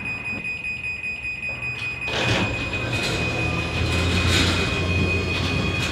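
Genie garage door opener starting about two seconds in and running steadily as it drives the door closed, the door rolling down its tracks. A steady high warning tone from the MyQ closing alarm sounds throughout.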